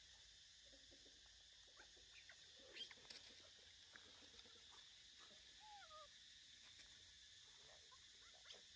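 Near silence, broken by faint crackling of dry leaves and small clicks as a baby macaque moves over leaf litter and rocks, loudest about three seconds in. Two short soft chirps come near the middle, over a faint steady high hiss.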